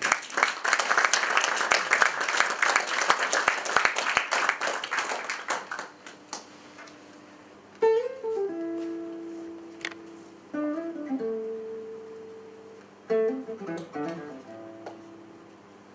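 Audience applause for about six seconds, then a classical guitar starts playing: three short plucked phrases, each ending on a note left ringing.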